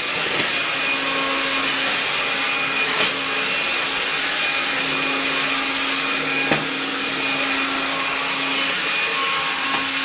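AEG CX7 cordless stick vacuum running steadily: an even suction hiss with a constant motor hum and whine, as the floor nozzle with its turning brush roll glides over parquet. Two faint clicks, about three and six and a half seconds in.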